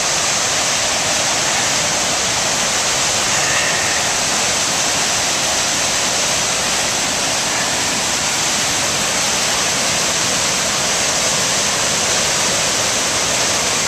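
Waterfall in high water roaring over rock ledges: a steady, loud rush of whitewater.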